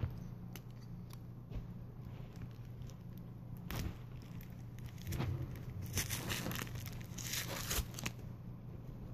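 Packing tape being peeled and ripped off a cardboard shipping box, with handling clicks and rustles. A run of sharper rips comes about six to eight seconds in.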